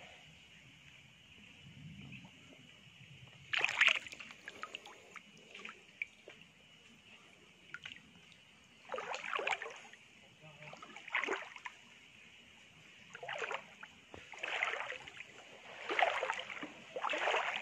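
Shallow stream water sloshing and splashing as someone moves through it: about seven separate splashes, one early and the rest coming every second or two in the second half.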